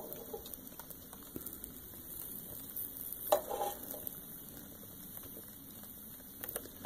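Newspaper and cardboard kindling catching fire in a wood stove's firebox, crackling faintly with scattered small pops, and one louder pop or knock about three seconds in.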